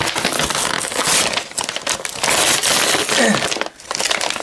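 Brown paper bag crumpling and rustling as it is handled, a dense crackly noise that drops away briefly near the end.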